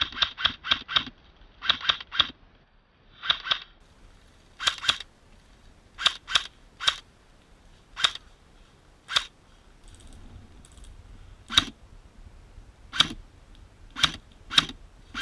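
Airsoft guns firing: a quick burst of about four shots at the start, then short bursts of two or three, then single shots spaced about a second apart.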